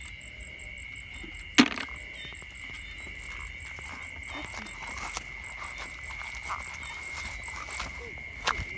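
Night chorus of crickets and other insects: a steady high trill under a higher, rapidly pulsing chirp, about five pulses a second. A single sharp knock about a second and a half in.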